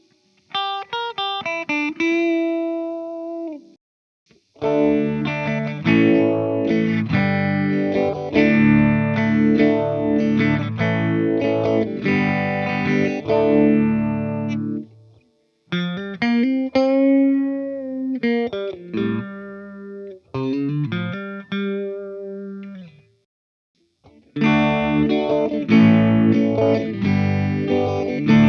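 Electric guitar, an Epiphone Les Paul Special, played through a Joyo Vintage Phase phaser pedal with the speed knob near the middle of its range, into a Fender Tone Master Twin Reverb amp. It plays phrases of single notes and chords with short pauses between them, and bends one note up and back down about halfway through.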